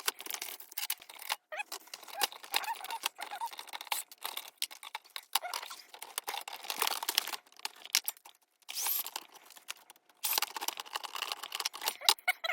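Plastic and metal parts of an electric typewriter being handled and pulled apart by hand: a busy run of clicks, rattles and scrapes, broken by a few brief gaps.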